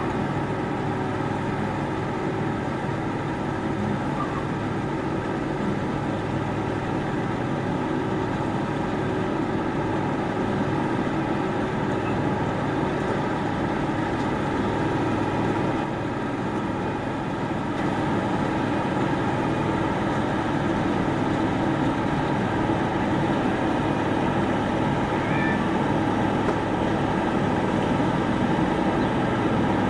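Claas Mega 208 combine harvester's diesel engine running steadily, its level climbing a little in the second half.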